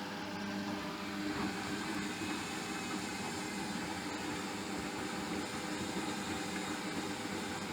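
Hotpoint washing machine running, its motor turning the drum with a steady hum that grows slightly louder about a second in.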